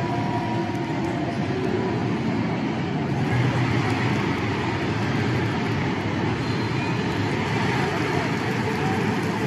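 Large basketball arena crowd chanting a player's name, a steady mass of voices filling the arena.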